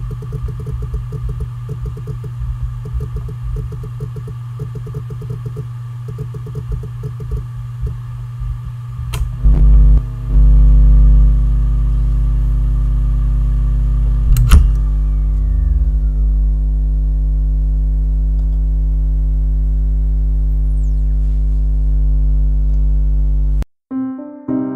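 Seagate Barracuda 7200.12 (ST31000528AS) 1 TB 7,200 RPM hard drive, a failing unit with thousands of reallocated sectors, running with rapid irregular seek chatter over a steady hum. About nine seconds in a sharp click brings a loud steady drone, and a second click around the middle starts a falling whine as the platters spin down. The sound cuts off near the end and piano music begins.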